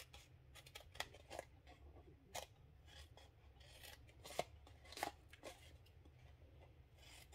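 Small paper snips cutting paper: short, faint snips at irregular intervals, each cut quick and crisp.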